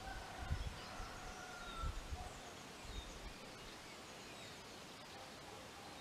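Quiet outdoor background with faint, scattered bird chirps, and three brief low rumbles in the first three seconds.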